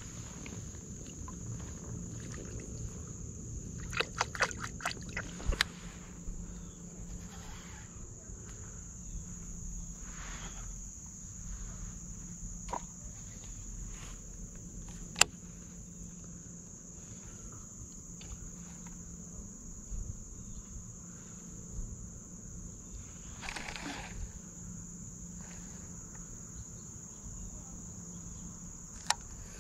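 Insects droning: one steady, high-pitched, unbroken buzz. Now and then it is broken by sharp clicks and knocks, a cluster of them about five seconds in and a few single ones later.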